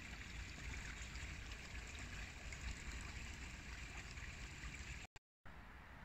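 Small forest creek trickling over stones, a steady rush of running water. The sound cuts out briefly about five seconds in and comes back quieter.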